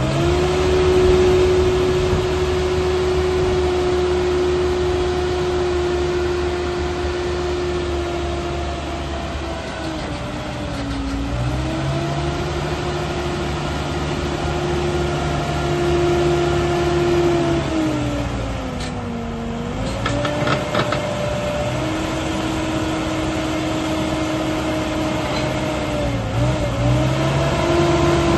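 Merlo P40.17 telehandler's diesel engine running at raised revs while the boom is worked, its pitch dropping and climbing back a few times.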